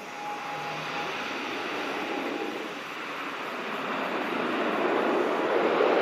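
ATR 72-600 twin-turboprop airliner on its landing roll, its engines and propellers heard as a rushing noise that grows louder through the second half, with a faint steady whine in the first couple of seconds.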